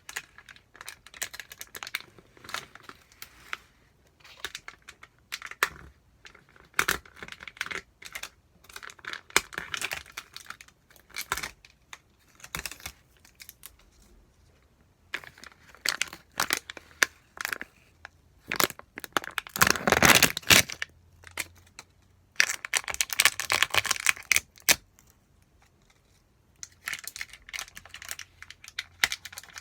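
Plastic food-delivery packaging being torn open and crinkled in irregular bursts, with two longer, louder stretches of crinkling about two-thirds of the way through.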